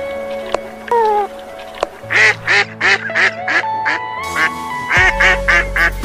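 Canada geese honking in a quick run of calls, about three a second, starting about two seconds in, over background music.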